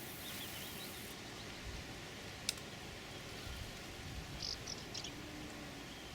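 Quiet outdoor background hiss with a few faint bird chirps and one sharp click about two and a half seconds in.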